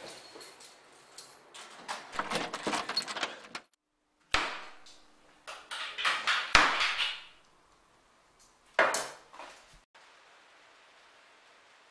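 Clicks and knocks of a door and keys, then a kitchen knife cutting vegetables on a cutting board, with sharp knocks as the blade hits the board.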